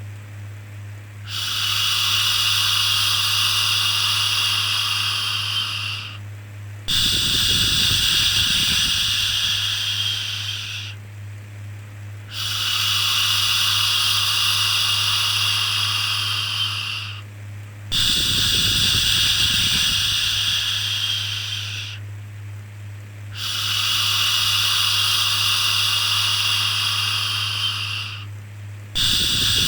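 A long, drawn-out "shhh" shushing sound made to soothe a baby, repeated five times, each about five seconds long with a short pause between, over a steady low hum.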